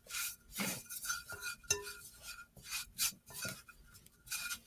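Fingers rubbing and squeezing a flour, salt, oil and water mix against the inside of a mixing bowl, in short irregular strokes a few times a second, as the playdough is mixed by hand.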